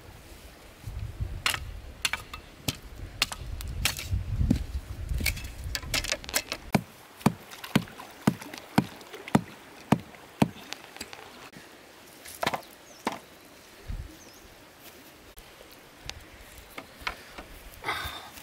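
Sharp wooden knocks and chops of a machete on bamboo, irregular at first, then a steady run of about two strikes a second as a bamboo stake is knocked into the ground, followed by a few scattered knocks.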